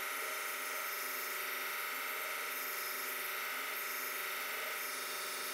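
Belt grinder running with a surface conditioning belt, a damascus steel chef knife blade held against it to blend and smooth the ground surface: a steady, even hum and hiss with no breaks.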